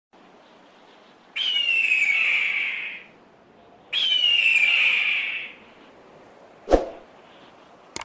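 A bird of prey screaming twice, each a harsh, downward-sliding call about a second and a half long. A single sharp knock and then a quick click follow near the end.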